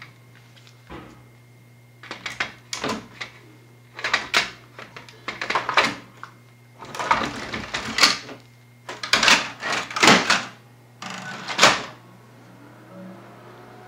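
Plastic clatter and knocks as a toner cartridge is pushed into an HP Color LaserJet CP2025 printer and the printer's door is shut, in a string of short irregular bangs, over a steady low hum.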